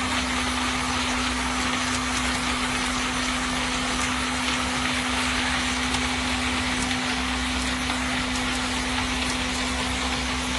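Handheld immersion blender running steadily at one speed, blending cashew nuts with water: a constant motor hum under an even whirr.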